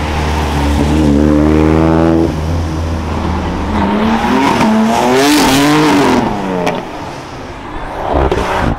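A car engine revved hard as the car pulls away and passes. Its pitch climbs, drops and climbs again several times as the throttle is worked. A couple of short sharp pops come near the end.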